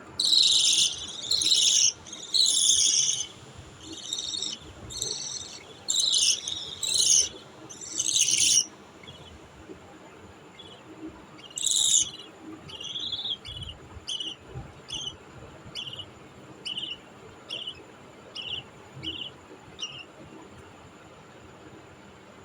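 Baby budgie chicks calling: loud, raspy, high-pitched calls about once a second for the first eight seconds, then a run of shorter, fainter chirps about two a second.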